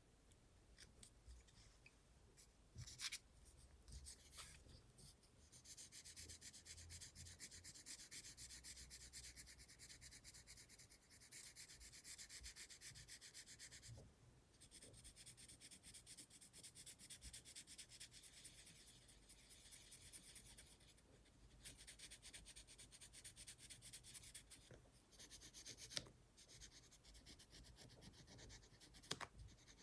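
Pencil shading fast on sketchbook paper: long runs of quick back-and-forth scratching strokes, broken by a few short pauses, with several sharp taps.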